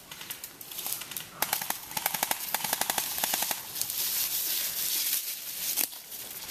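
Airsoft gun firing a rapid full-auto burst, a quick string of sharp cracks about ten a second, starting about a second and a half in and lasting a couple of seconds. A steady hiss of noise follows.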